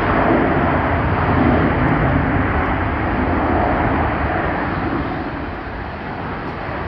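Jet airliner's engine noise after touchdown, a loud steady rush that fades from about five seconds in, mixed with wind buffeting the microphone.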